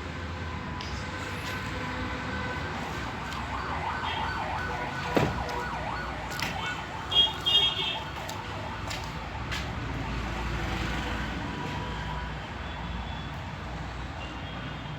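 Background street noise with steady siren-like tones. There is a sharp knock about five seconds in and two short, loud, high beeps a little after seven seconds.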